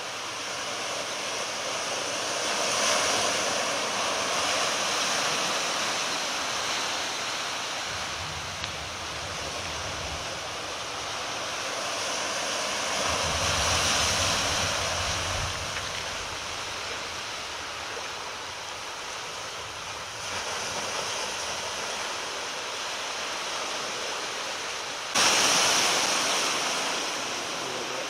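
Thunderstorm ambience: a steady rushing noise that swells and eases, with low rumbles twice near the middle. A louder rush starts abruptly near the end.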